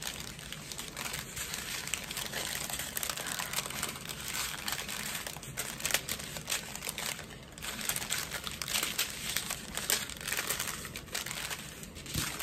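Small plastic bags of diamond-painting drills crinkling as they are handled and sorted, an irregular crackle throughout.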